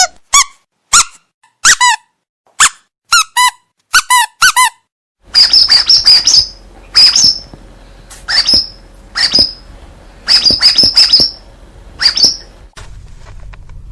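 Rubber squeaky dog toy squeezed over and over. First come short single squeaks, each with a quick upward swoop. From about five seconds in the squeaks are higher-pitched and come in quick clusters of two or three over a faint hiss.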